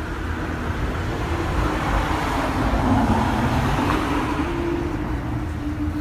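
Road traffic: a vehicle passing on the road outside, its tyre and engine noise swelling to a peak around the middle and then fading.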